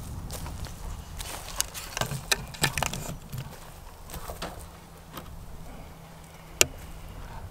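Footsteps crunching over dry tilled stubble, with scattered clicks and rattles as broken pieces of a crashed RC jet's airframe are handled and picked up, and one sharp snap near the end. A low wind rumble sits under it all.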